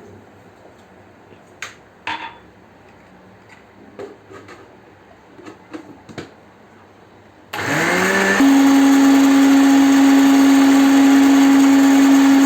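A few light knocks, then about 7.5 s in an electric blender switches on. It rises quickly in pitch to a steady high whine as it beats eggs, sugar and vanilla together for cake batter.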